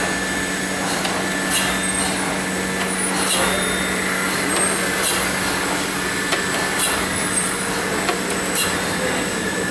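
Polymer pencil extrusion line running with a steady hum, and a sharp click about every second and three-quarters, five times, as the cutter chops the extruded pencil rod into lengths.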